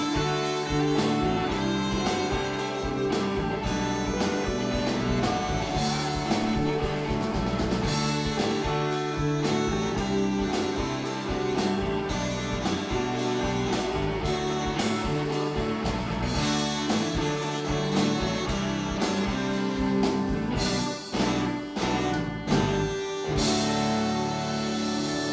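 Live rock-blues band playing an instrumental passage on electric guitars, bass, keyboard and drum kit. Near the end come a few sharp drum hits, and then the band holds a final chord that rings on.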